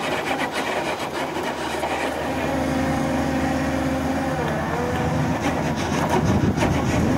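Cat 320C excavator's diesel engine running while its hydraulic drill attachment works a steel rod into the seabed, with metallic clattering near the start and again near the end. A steady hum comes up in the middle, and its pitch dips briefly about four and a half seconds in.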